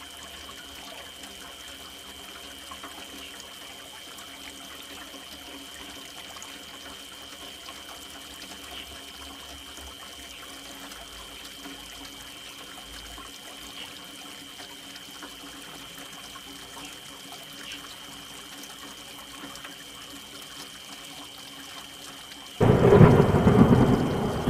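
Rain falling steadily, with a faint steady high tone in the background. Near the end a sudden loud thunderclap breaks in and rumbles on.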